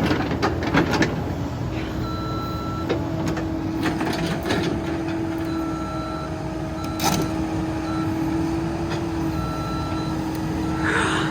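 Caterpillar 308 mini excavator's diesel engine running steadily, with a few sharp knocks and an electronic beeper sounding in short beeps of uneven length from about two seconds in.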